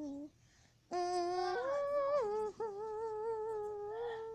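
A young girl humming a tune: a short note, a pause, then long held notes that step up and back down in pitch, the last one held with a slight wobble.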